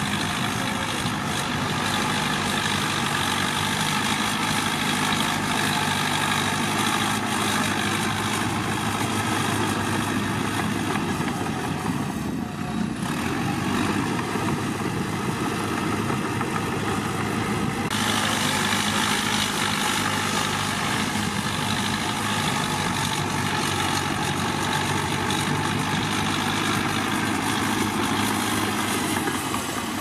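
Caterpillar D3K crawler bulldozer's diesel engine running steadily as the machine pushes a load of dirt and rock with its blade.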